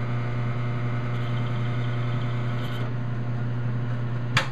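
Metal lathe running with a steady motor hum and a faint high ticking for a couple of seconds in the middle, then a sharp click just before the end as it is switched off and the hum stops.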